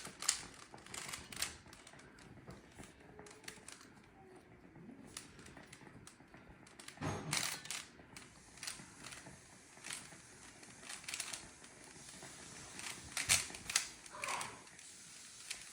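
Plastic Rubik's Cube layers being turned by hand, clicking and rattling in irregular quick runs, with louder flurries about halfway through and again near the end.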